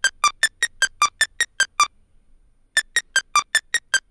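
Arpeggiated synth line played from a single short sampled synth note: quick, short notes, about five a second, stepping among a few pitches, in two runs with a pause of about a second near the middle.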